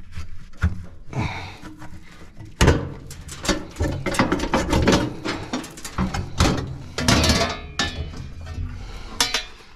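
Hand tools and metal parts of a combine harvester knocking and clanking, a quick irregular run of metallic clicks and knocks that gets busier after the first couple of seconds.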